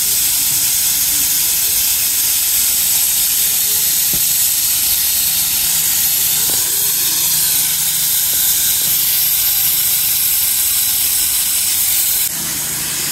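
Steady, loud hiss of steam venting from live-steam model locomotives being fired up, with plumes rising from their stacks; the hiss drops slightly in level near the end.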